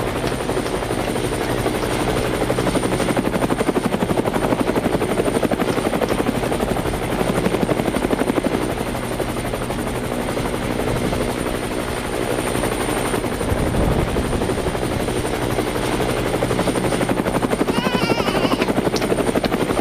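Helicopter running steadily: the rotor makes a fast, even chopping beat over engine noise, with a thin high whine held throughout.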